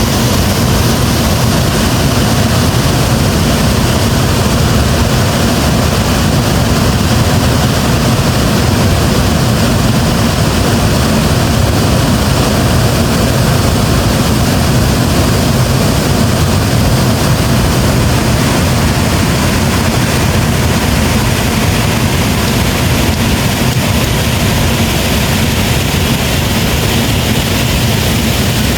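Waterfall's loud, steady rumble of falling water, heaviest in the low end.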